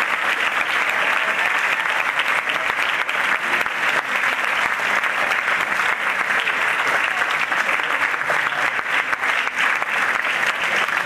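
Large audience applauding at the end of a lecture: a long, steady round of clapping from many hands.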